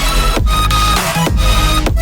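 Electronic dance music with heavy bass and no vocals, broken by a few very short drop-outs.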